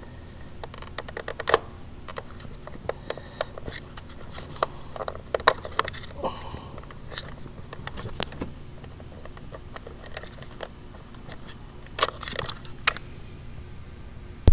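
Irregular light clicks and short metallic clattering, like small hard parts being handled, over a faint steady low hum.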